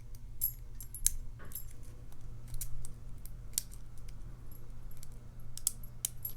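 Irregular small metallic clicks and ticks from a lock pick and tension wrench working the pin stacks of a Matlock 2508 padlock, over a steady low hum.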